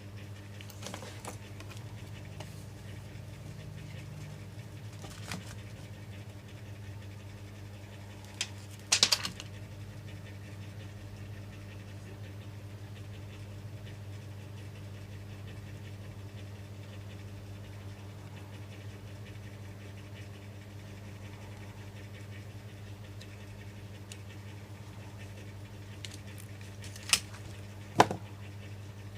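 Steady low electrical hum, with a few sharp clicks and knocks about a third of the way in and again near the end.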